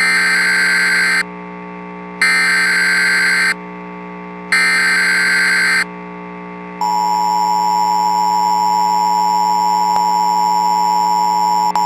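Emergency Alert System tones. Three bursts of the SAME digital header, each a buzzing data warble about a second long with short gaps between, are followed about seven seconds in by the steady two-tone EAS attention signal, which marks an emergency alert broadcast about to be read.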